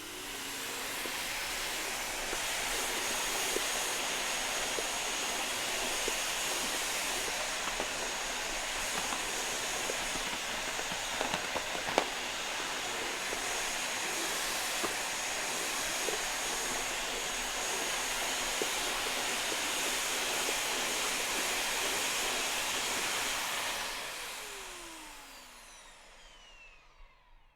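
Vacuum cleaner running over a floor. The motor spins up over the first couple of seconds, then runs with a steady rushing hiss and a faint high whine, broken by a few small clicks and a sharper knock about twelve seconds in. Near the end it winds down with a falling whine.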